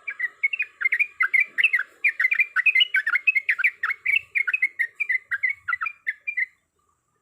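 Yellow-vented bulbul (trucuk) singing a long, fast bubbling song of rapid liquid notes, about six a second, that stops abruptly near the end. This is the rolling 'ropel' song of a bird in full voice, typical of one calling out a rival.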